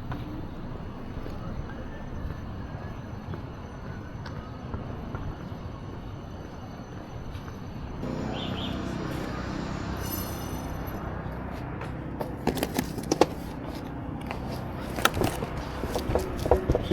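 Steady low outdoor rumble of street noise; about eight seconds in a steadier engine-like hum joins it. From about twelve seconds a run of sharp clicks and knocks, the loudest sounds, rattles on irregularly.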